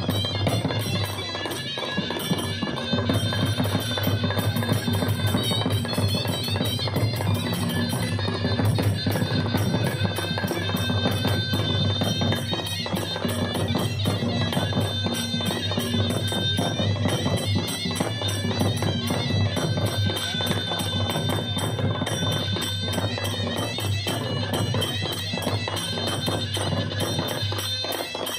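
Gudum Baja folk ensemble playing: slung gudum drums beaten in a steady, dense rhythm under a shrill reed pipe carrying the melody.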